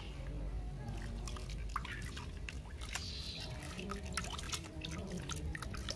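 Water splashing and dripping in a washbasin as a hand scoops soapy water over a baby monkey during its bath, with many quick small splashes and drips.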